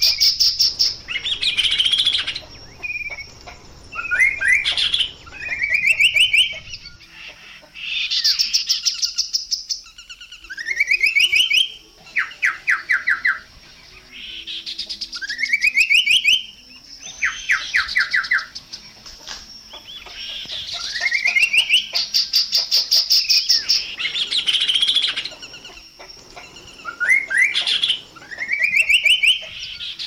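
Chestnut-capped babbler singing: loud phrases repeated every two to three seconds, each a quick upward sweep of rapid notes mixed with high, dry rattling trills.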